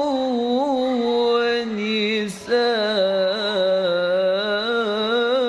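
Qur'anic recitation in a slow, melodic tilawah style: a single voice draws out long, wavering ornamented notes. It breaks off briefly a little over two seconds in, then carries on with another long held note.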